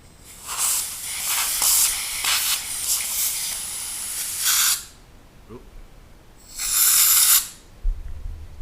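Can of compressed-air electronics duster spraying into an OTF knife's handle to blow out crud and excess oil: one long hissing blast of about four and a half seconds, then a second short blast.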